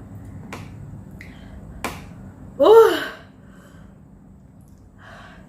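A couple of sharp clicks, then about two and a half seconds in a short, loud, high-pitched vocal cry whose pitch rises and falls.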